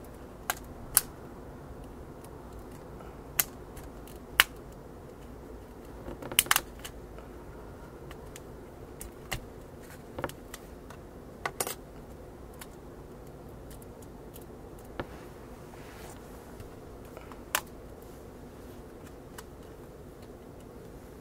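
The frame latches of a Samsung Galaxy Mega snapping loose as a metal pick is slid around the phone's edge to pry the frame up. Scattered sharp clicks come a second or a few seconds apart, some in quick pairs.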